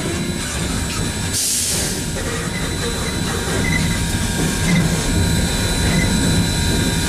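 Cab of steam locomotive No. 630, a Southern Railway 2-8-0, running: a steady rumble and clatter, with a short burst of steam hiss about a second and a half in.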